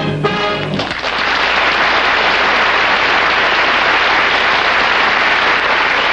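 The last held chord of the music cuts off about a second in, and a studio audience applauds steadily.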